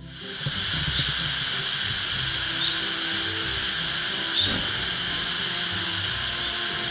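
Loud, steady, high-pitched buzzing of a cicada chorus, starting suddenly and holding level throughout, with soft background music underneath.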